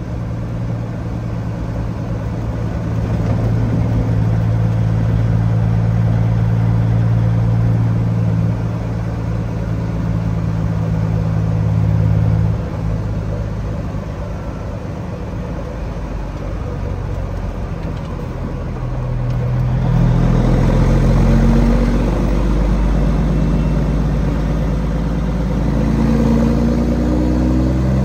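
Peterbilt 379 semi truck's diesel engine running on the road: a steady drone at first that drops off about twelve seconds in, then the engine pitch climbs in several short rises from about twenty seconds in as the truck pulls away.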